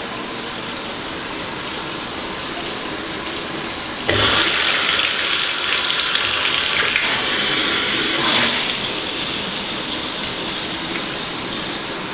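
Shower head spraying water at full pressure now that a new diverter in the tub spout sends the flow up to it; a steady hiss that gets suddenly louder and brighter about four seconds in.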